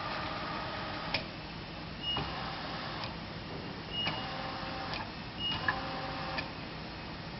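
X and Y axis servo drives of a Southwestern Industries K2 CNC knee mill moving the table under a ProtoTrak program: a motor whine that starts and stops in stretches of about a second, with a click as each move starts or stops. Short high beeps come every second or two.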